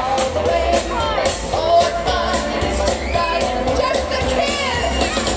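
Live band playing an amplified song on an outdoor stage, a singer over steady bass and drums.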